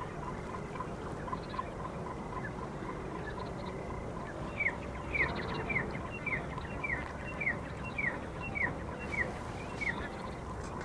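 A bird calling a run of about ten short, falling notes, evenly spaced a little over half a second apart, over steady background noise with faint regular ticking.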